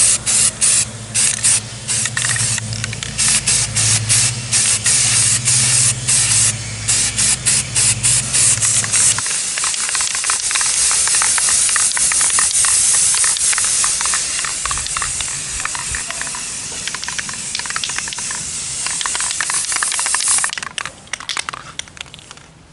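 Paint spraying: a loud hiss in rapid short bursts, then one long continuous spray that stops near the end. A low hum runs underneath the first third and cuts off abruptly.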